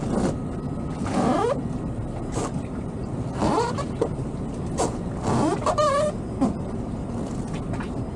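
Rubber fenders and tow lines squeaking and creaking between the towboat and the yacht tied alongside, as the two hulls work against each other: short sliding squeaks every second or so, the longest a wavering squeak about six seconds in. A steady low engine rumble runs underneath.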